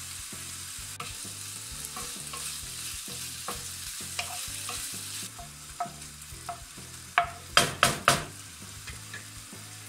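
Diced chicken and sage leaves sizzling in oil in a non-stick frying pan, stirred with a wooden spoon that clicks and scrapes against the pan. A few loud knocks of the spoon on the pan come in quick succession near the end.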